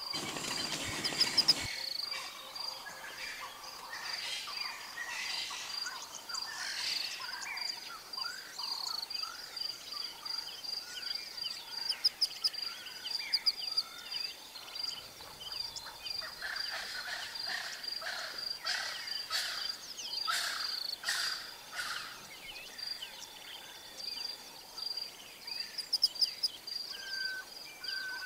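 Bushveld ambience: a steady high insect trill runs under many short bird chirps and calls, with a louder burst of calls in the first two seconds and a run of short repeated notes near the end.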